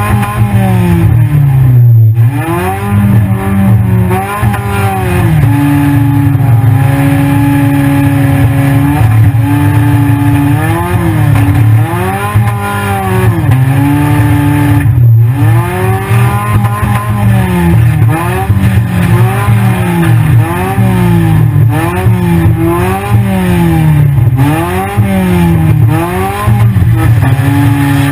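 Engine of a 1997 Honda Accord demolition derby car, heard from inside the cabin, revving up and falling back again and again, about once every second or two, with a few short steady stretches.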